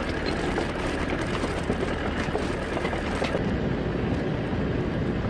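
A vehicle driving over a wooden plank bridge: a steady engine and tyre rumble with the loose planks knocking and clattering under the wheels. The higher hiss drops away a little after halfway.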